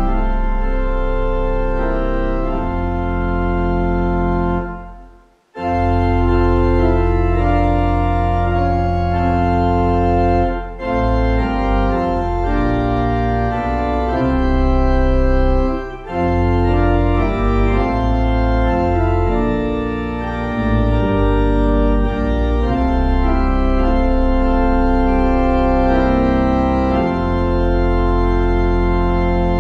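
Organ playing slow, held chords in phrases, with a short pause about five seconds in and brief breaks between later phrases.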